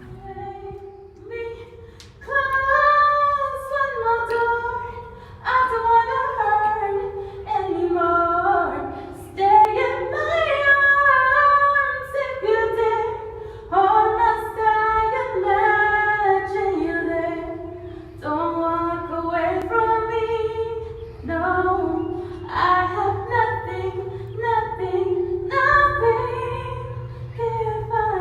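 A woman singing a melody in long held notes that step from pitch to pitch.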